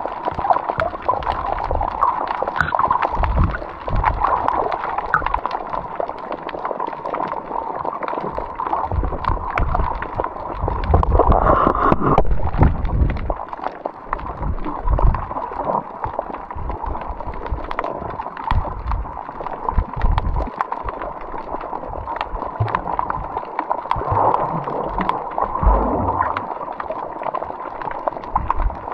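Water sloshing and gurgling around the microphone, with irregular low thumps and a muffled sound.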